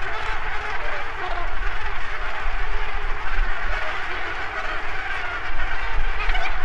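Massed calling of a Cape gannet breeding colony: a dense, steady din of thousands of birds, with a low rumble underneath.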